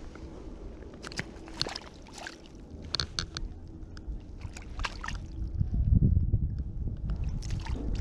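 Short, scattered splashes and sloshing of lake water right beside a float tube, where a small rainbow trout lies in the landing net, with a low rumble about six seconds in.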